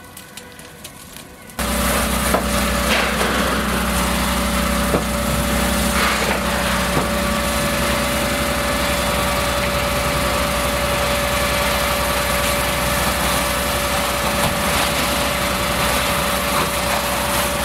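Faint crackling of a burning car, cut off about two seconds in by a fire engine's pump running steadily under the loud hiss of water being sprayed onto the burning car.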